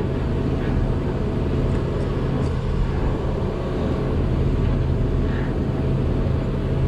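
Hidromek 220 LC excavator's diesel engine running with a steady low drone, heard from inside the operator's cab.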